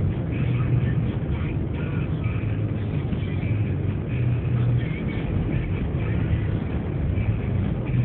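Steady low rumble of a car's engine and tyres heard from inside the cabin while driving on a snow-covered road.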